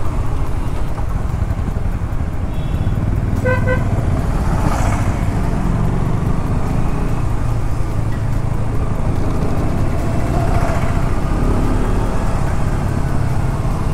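Motorcycle riding in traffic: steady engine and wind rumble, with a vehicle horn beeping in a few quick short pulses about three and a half seconds in.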